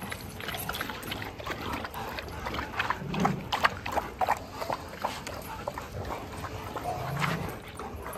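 Dogs meeting at close quarters: sniffing and scuffling sounds, with two short low growls about three seconds in and again near the end, from a tense greeting with hackles raised.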